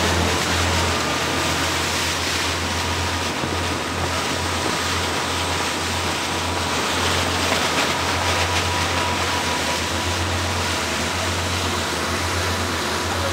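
Fishing boat underway: its engine drones steadily under a constant wash of rushing water.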